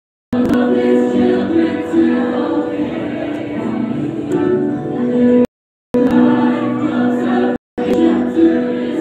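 A group of students singing together as a choir, with long held notes. The sound drops out to silence for a moment three times.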